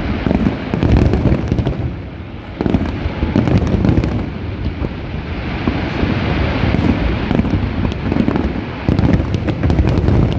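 Aerial fireworks display going off in quick succession: deep booms overlapping with crackling pops, with no let-up.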